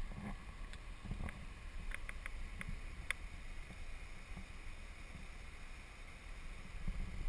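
Low, steady wind rumble on the microphone, with a few light clicks and knocks in the first three seconds.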